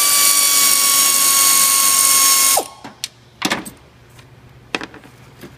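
Power ratchet whining steadily as it spins a 15 mm nut off the top of the strut mount, its pitch sagging slightly, then stopping abruptly about two and a half seconds in. A few light metallic knocks follow as the loose nut is taken off by hand.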